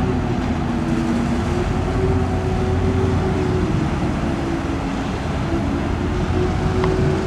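Ship engines running steadily: a low rumble under a steady drone that wavers slightly in pitch.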